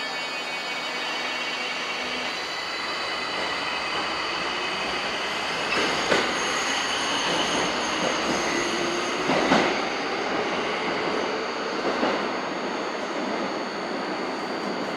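Tokyo Metro 1000 series subway train moving along the platform, its wheels squealing in steady high tones over the rumble of the rails. Three sharp clacks of wheels over rail joints come at about 6, 9.5 and 12 seconds in.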